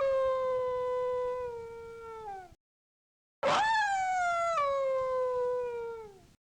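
A dog howling: two long howls separated by a brief silence, each holding a steady pitch and sliding down at the end.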